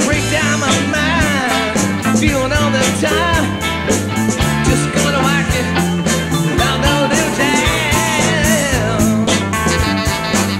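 Live rock band playing with a steady beat of drums and bass under electric guitars and keyboards, while a harmonica solo bends its notes up and down over the top.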